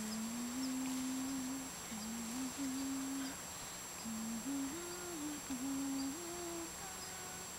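Labrador retriever puppy making a low humming whine, a pure-sounding tone that steps up and down in pitch in a string of held notes with short breaks.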